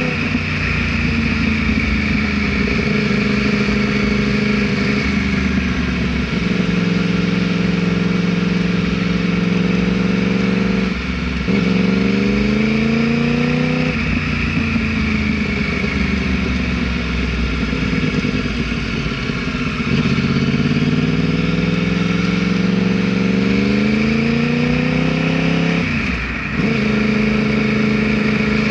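Yamaha R1's inline-four engine under way. The revs climb and hold, then drop sharply with a gear change about eleven seconds in and climb again. They fall away slowly as the bike slows, then rise once more and drop with another gear change near the end.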